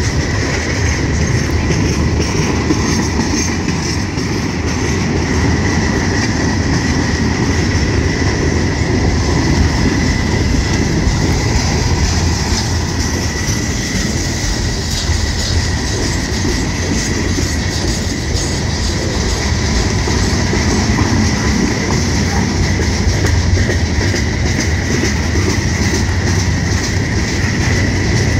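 Freight train cars rolling past close by: a steady, loud rumble and clatter of steel wheels on the rails, with a thin, steady high-pitched wheel squeal running through it.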